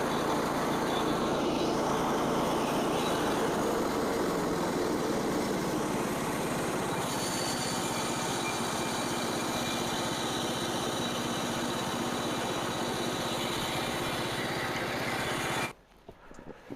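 Small gas engine of a Frontier OS27 portable band sawmill running steadily while the band blade saws through a red oak log. About a second before the end the sound stops suddenly, as the band blade breaks mid-cut; the blade is a brand-new one that the sawyer was not pushing hard.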